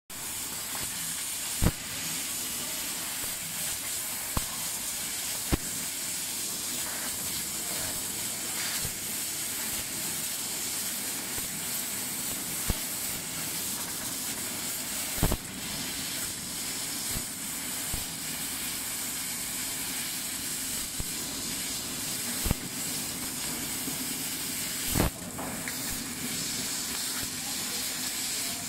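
1000 W fiber laser cutting machine cutting sheet metal: a steady hiss of assist gas at the cutting head, with a faint hum beneath. Short sharp clicks break in every few seconds, about seven in all.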